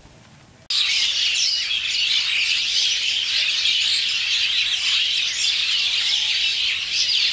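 Dense chorus of many small birds chirping and twittering over one another, loud and high-pitched, starting suddenly about a second in.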